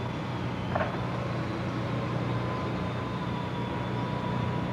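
A steady low engine rumble with a faint constant whine above it, and a short click about a second in.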